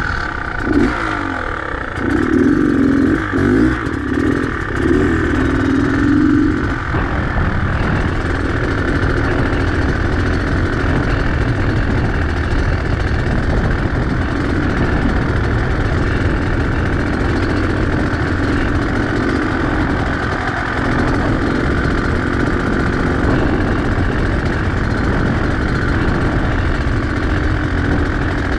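Beta X-Trainer 250's two-stroke single-cylinder engine running under a rider, working harder for a few seconds near the start, then running steadily.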